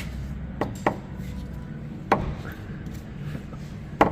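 Tesla Model 3 front suspension creaking in four short, sharp creaks at uneven intervals, over a low hum. It is the creak that is later traced to a front ball joint with water inside it.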